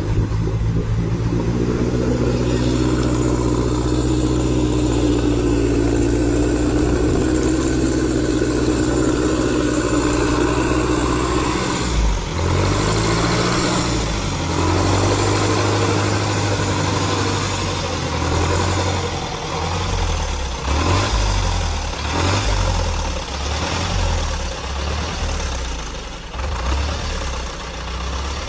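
Off-road vehicle's engine running under load while fording deep river water, exhaust vented through a tall raised pipe. It holds a steady note for about twelve seconds, then the revs rise and fall unevenly as the vehicle pushes through.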